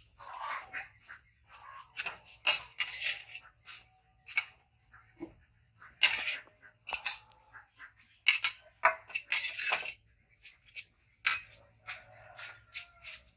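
Metal ladle scraping and knocking against a steel wok as fried egg is scooped out, in irregular sharp scrapes and clanks.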